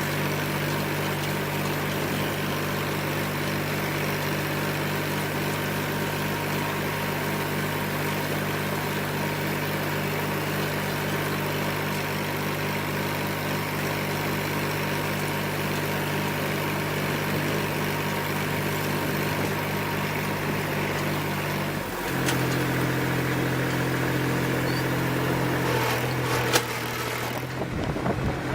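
Farm machine's engine running steadily, dropping to a different steady pitch about 22 seconds in, with a sharp click a few seconds later.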